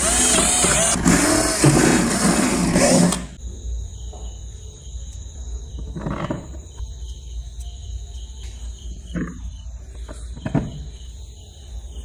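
Cordless drill running under load, its motor whine wavering as the bit cuts through plastic, stopping abruptly about three seconds in. A few light knocks of hardware on a plastic tub follow.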